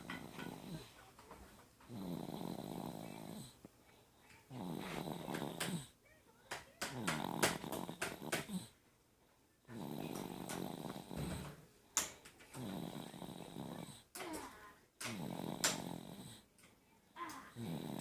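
Snoring in sleep: a rasping snore on each breath, repeating about every two seconds, with short clicks and snorts between the snores.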